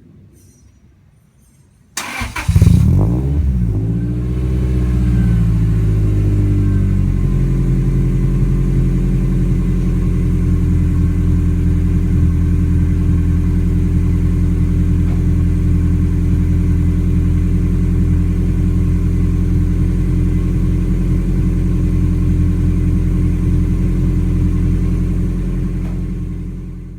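Toyota Altezza RS200's 3S-GE 2.0-litre inline-four starting through a 5ZIGEN Fireball aftermarket muffler: it cranks and catches about two seconds in with a brief rev flare, then settles from a raised cold-start idle, its pitch dropping over the next few seconds, into a steady idle that fades out at the end.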